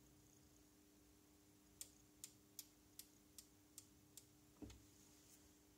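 Seven sharp, evenly spaced clicks, about two and a half a second, ending in a duller knock, over a faint steady hum in an otherwise near-silent room.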